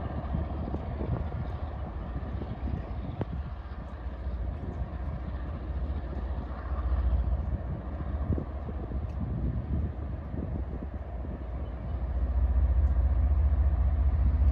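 Diesel locomotive of a slow-moving CSX maintenance-of-way rail train rumbling, growing louder about twelve seconds in, with scattered knocks.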